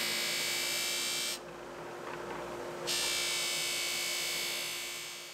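Bench buffer running, its motor humming steadily, with a steel knife blade pressed against the spinning buffing wheel, giving a high hiss as it is polished. The blade comes off the wheel about a second and a half in and goes back on about a second and a half later, and the sound fades out near the end.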